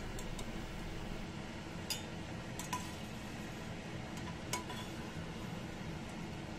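A perforated steel skimmer clinking against the pan a few times while fried cashews, raisins and bay leaves are scooped out of hot ghee, over a low steady hiss.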